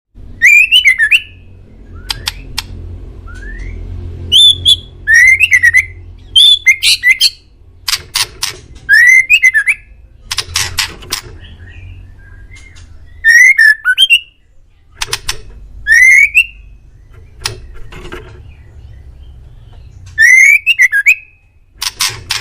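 Male white-rumped shama (murai batu) singing: loud whistled phrases that swoop up and down, mixed with sharp clicking notes, come every second or two with short pauses between them, over a low steady hum.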